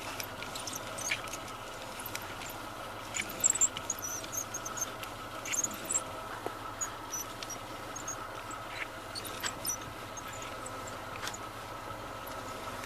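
Phase-1 Renault Logan steering squeaking as the steering wheel is turned: short high-pitched squeaks at irregular intervals over a steady hum. This is a squeak that has newly appeared when the wheel is rotated.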